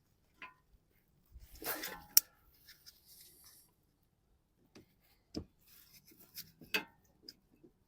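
Flat-bladed screwdriver prying at plastic wiring-harness connectors and clips: a short scraping rub about two seconds in that ends in a sharp click, then a few scattered clicks and knocks.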